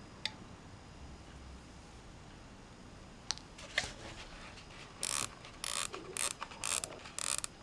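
Electric clothes iron being handled and pressed on fabric: a few light clicks, then five short hisses about half a second apart as it is worked over the cloth.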